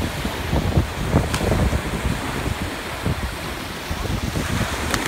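Surf washing in and breaking at the shoreline, with wind buffeting the microphone as a low rumble.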